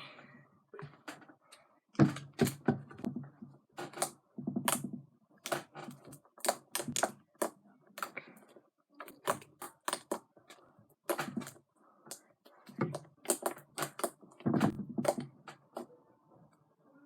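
Sticky homemade glue slime being kneaded and squeezed in the hands, giving a rapid irregular run of wet clicks and pops.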